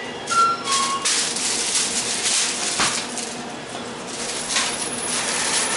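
Convenience-store interior noise: a short electronic two-note chime, falling from the first note to the second, near the start, then a dense clatter of small knocks and rustling.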